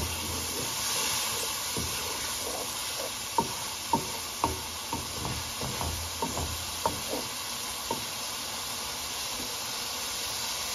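Spice masala of tomato and ginger-garlic paste sizzling steadily in oil in a metal karahi while it is fried down (bhuna), with a wooden spoon scraping and knocking against the pan as it is stirred. The knocks come in a string between about three and eight seconds in.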